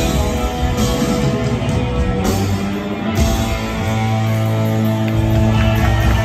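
Live rock band playing electric guitars, bass and drums with held chords. About three seconds in, the bass drops out for a couple of seconds, then a held low bass note comes back in.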